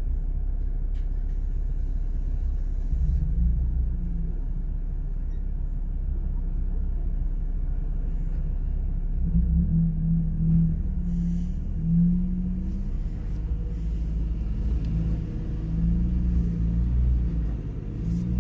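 Jeep Wrangler engine running low and steady, heard from inside the cabin on a slow rock crawl, with the revs swelling briefly a few times.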